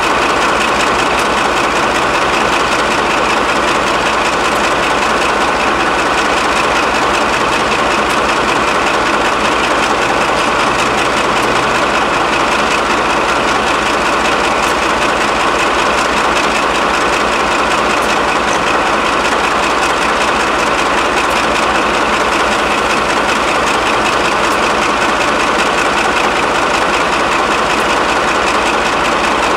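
Class 35 Hymek diesel-hydraulic locomotive D7076, with its Maybach V16 engine, idling steadily while coupled to a second diesel-hydraulic locomotive that is also ticking over.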